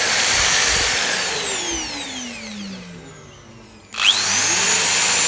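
Metabo vacuum cleaner motor running at a high whine, then switched off and spinning down with falling pitch. About four seconds in it is switched back on and spins up quickly to full speed.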